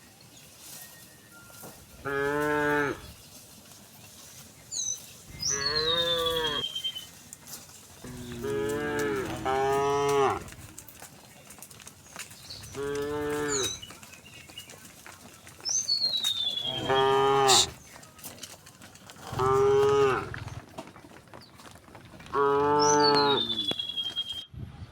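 Cows mooing one after another, about eight long calls spaced a few seconds apart, with two overlapping near the middle.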